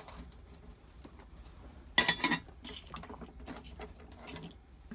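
Stainless steel cookware being handled: a quick cluster of three or four sharp metal clinks about two seconds in, with light taps and knocks around it.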